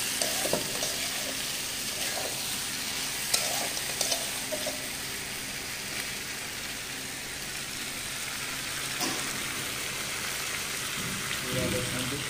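Chicken and onions frying in oil in a metal pot, sizzling steadily while a steel spatula stirs and scrapes through them, clicking sharply against the pot a few times.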